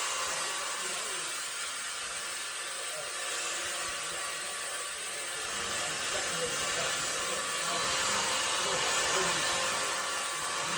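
A steady hissing noise with no breaks or rhythm.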